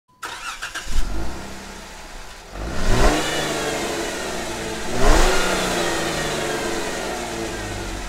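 Jeep Wrangler V6 engine heard through its factory exhaust and muffler: it fires up about a second in, settles to idle, then is revved twice, each rev rising and falling back to idle.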